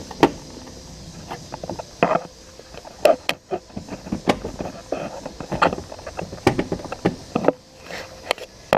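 Irregular plastic knocks, clicks and rattles as a car taillight housing is wiggled and worked loose from the body.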